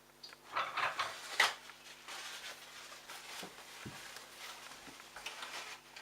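Handling noises: a short burst of clattering with a few knocks, then a steady soft rubbing with the odd knock.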